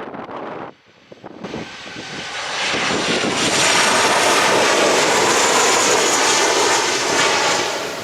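Fixed-wing aircraft's engines building over about two seconds to a loud, steady sound with a faint high whine, then easing off near the end as the plane passes.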